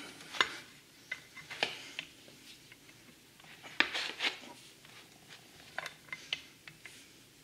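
Scattered short metal clicks and knocks, with a brief rasping rub about four seconds in, from a torque wrench and spline tool being worked on a jet pump impeller as it is tightened toward 110 foot-pounds.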